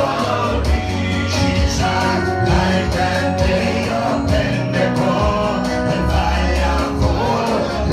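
Gospel worship music: a man singing into a handheld microphone over steady instrumental backing with a strong bass line.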